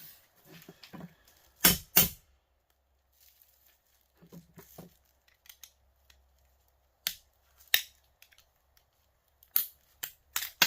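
Sharp clicks and snaps of hand tools breaking apart the plastic and metal parts of a small electric heater's motor. The loudest are a pair about two seconds in, with a few more scattered clicks later.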